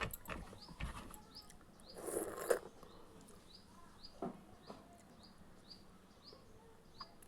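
Eating sounds, chewing and mouth noises with a louder rustling burst about two seconds in, while a small bird chirps steadily in the background, short rising chirps about two a second.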